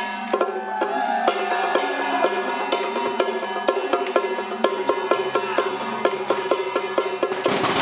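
Temple troupe's gong-and-drum band playing a fast, steady rhythm, with drum strikes and ringing gongs and cymbals. Firecrackers break in near the end.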